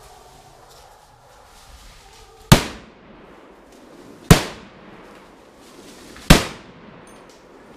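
Three shots from a semi-automatic Browning MK3 rifle in .300 Win Mag, fired in quick succession about two seconds apart at a running wild boar. Each is a sharp, very loud crack with a short fading echo.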